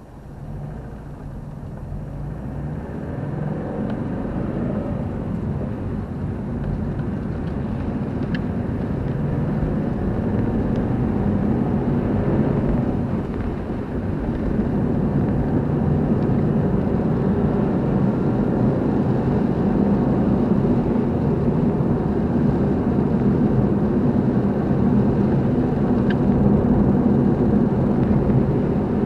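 A car being driven: a steady engine hum over road noise, fading in over the first few seconds.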